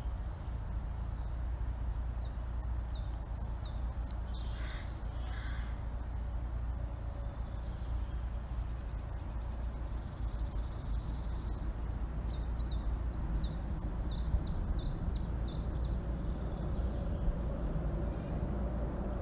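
Outdoor ambience with a steady low rumble. Birds sing over it: two runs of quick, high, repeated chirps, and a couple of harsher, lower calls about five seconds in.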